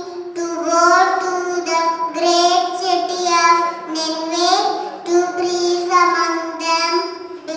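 A young child singing solo with no accompaniment, holding steady notes in short phrases that rise and fall in pitch.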